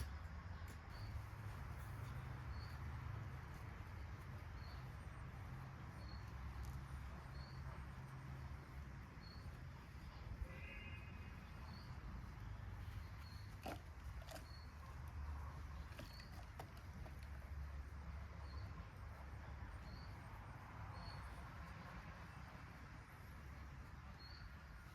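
Faint outdoor animal ambience: a small high chirp repeats roughly once a second over a low steady rumble, with one short animal call about ten seconds in and a few scattered clicks.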